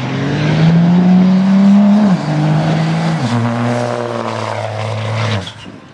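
A diesel Dodge Ram pickup accelerates hard down a drag strip. The engine's pitch climbs, drops sharply twice as the transmission upshifts (about two and three seconds in), and climbs again, then the sound cuts off suddenly near the end.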